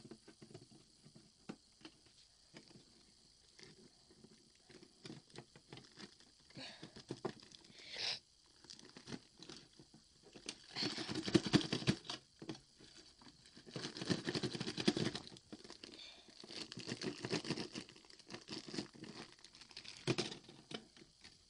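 Clear plastic bag crinkling and rustling as it is pulled off a toy candy-grabber's claw and its twist tie is undone, with scattered small plastic clicks. The crinkling comes in several louder bursts from about halfway through.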